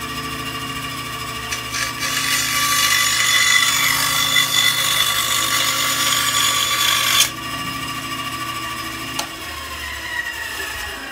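Bandsaw running, its blade cutting through a wooden block for about five seconds from about two seconds in. The cut stops sharply about seven seconds in, and the saw runs on with a quieter steady hum.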